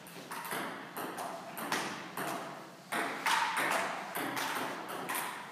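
Table tennis rally: the celluloid ball clicking off bats and the table in quick, irregular succession.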